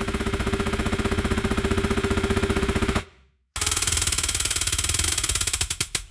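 Electric lift motor of an operating table lowering the table: a steady rapid buzz for about three seconds, a brief stop, then a second run of about two and a half seconds that ends with a few clicks.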